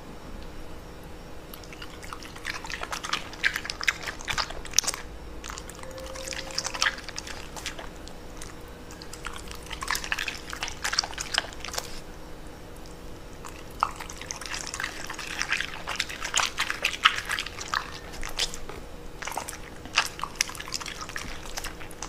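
A corgi biting and chewing raw bok choy, in three spells of crisp, wet crunching with short pauses between.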